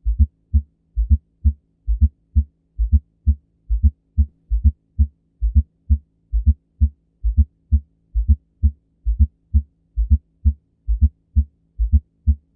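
Heart sounds with an S4 atrial gallop: a repeating low three-beat pattern, roughly one cycle a second, in which the extra S4 thud comes late in diastole just before S1 and is followed by S2. A faint steady hum sits underneath.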